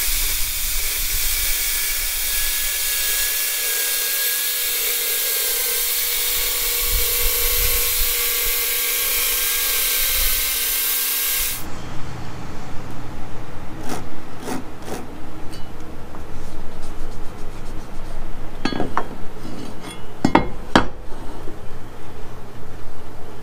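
Corded circular saw running steadily while cutting through a nearly 2-inch-thick wooden tabletop for about eleven seconds, then cutting off suddenly. After it, scratching and a few sharp knocks from a pencil and metal speed square marking lines on the wood.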